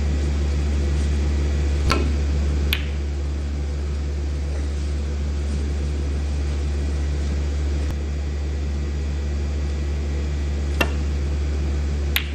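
Snooker balls clicking over a steady low hum. Two sharp clicks come about a second apart near the start, and two more near the end.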